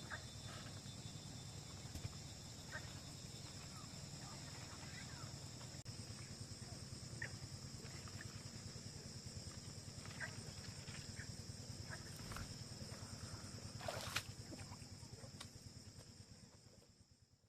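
Outdoor countryside ambience: insects trilling steadily, with scattered short chirps and a brief louder noise about fourteen seconds in. The sound fades out near the end.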